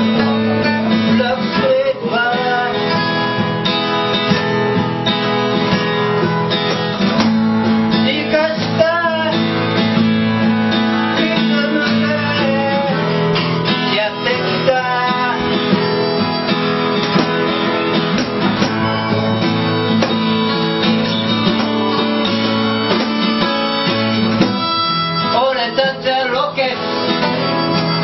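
Small acoustic group playing live: acoustic guitar with held low notes beneath a sliding, wavering lead melody.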